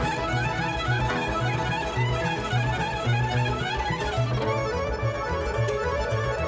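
Lively background music led by a fiddle, with quick runs of notes over a steady bass.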